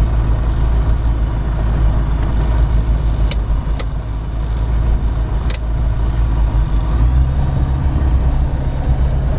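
Pipistrel Sinus motorglider's engine idling steadily while the magneto switches are clicked three times. It keeps running through the switching, because the magnetos are live (hot) and the ignition switches do not stop it. The engine note grows louder about seven seconds in as the throttle is moved.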